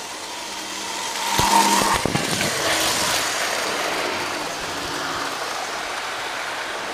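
Model train on three-rail tubular track running up close and passing the microphone, its motor and wheels growing louder to a peak about a second and a half in, with a few sharp clicks as the wheels cross the track joints, then fading slowly as it runs away.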